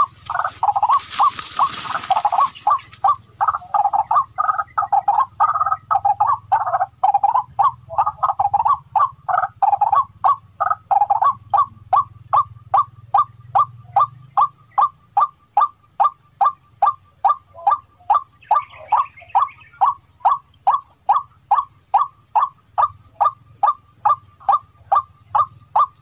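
White-breasted waterhen calling: a long, unbroken series of short repeated notes. The notes come thick and overlapping at first, then settle after about fourteen seconds into an even beat of about two a second.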